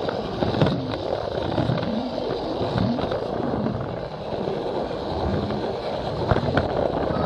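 Plarail toy train running on plastic track, its small motor and plastic wheels making a steady rolling rumble close up, with occasional clicks at the track joints. Crowd voices murmur behind it.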